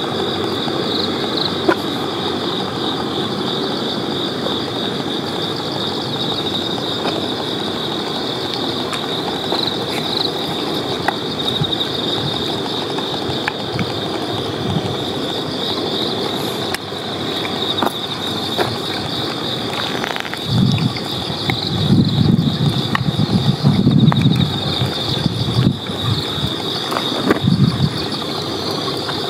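Steady high-pitched insect chorus over a low background hum. About two-thirds of the way in, a run of low, uneven growls comes from two male dogs squaring off, louder than anything else and lasting several seconds.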